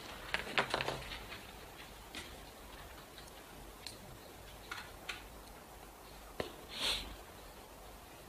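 Quiet room tone with scattered small clicks and taps, several close together in the first second, and a short soft hiss near the end.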